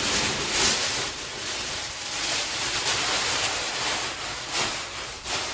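Rustling and swishing of packaging being pulled off a newly unboxed thickness planer. It is a continuous noisy hiss with a few louder swishes.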